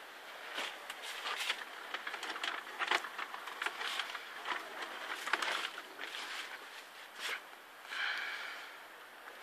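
Footsteps and the rustle of hanging plastic sheeting and props brushed aside while walking through a narrow haunted-maze corridor, with a brief high squeak about eight seconds in.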